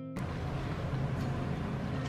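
Guitar background music stops just after the start, giving way to steady room noise with a low hum and a few faint clicks.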